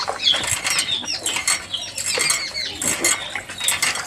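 Many small birds chirping at once, a dense run of short downward-sliding chirps overlapping each other, with scattered sharp clicks.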